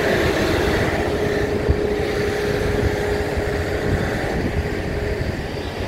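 Diesel generator set of a Taiwan Railways PBK power-baggage car (PBK10502) running steadily: an even engine drone with a held hum over a low rumble.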